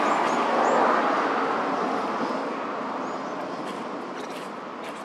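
A steady rushing noise, loudest about a second in and slowly fading, with a few faint high chirps over it.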